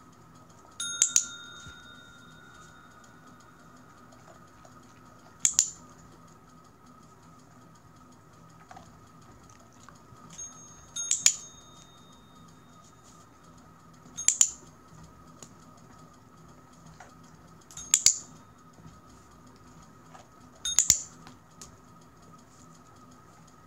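Desk bell on the floor rung by a dog, six sharp dings a few seconds apart, some struck twice in quick succession and several leaving a brief ringing tone.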